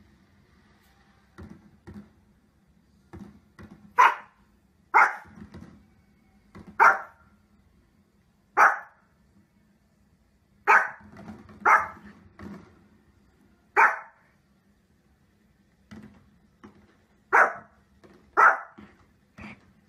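A Chihuahua barking in short, sharp single barks, about nine loud ones spaced a second or two apart with fainter barks in between, over a faint steady low hum.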